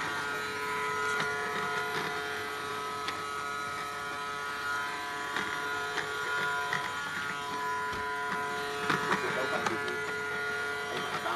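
A small electric motor buzzing steadily, its pitch holding for a few seconds at a time, with scattered light clicks and knocks of handling.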